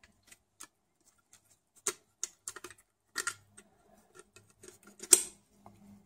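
Scattered light clicks and taps of a thin metal laptop hard-drive caddy being pried open and handled, with one sharper click about five seconds in.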